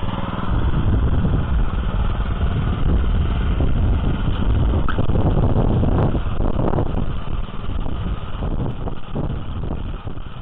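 Small petrol motor cultivator's engine working under load as its goose-foot tines churn hard garden soil. It picks up from a steadier, quieter run to a louder working run about half a second in, then wavers and eases off over the last few seconds.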